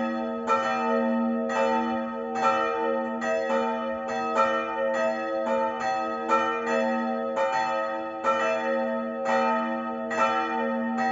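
Church bells ringing the evening bell, several bells swinging together with overlapping, uneven strikes about two a second over a lasting hum.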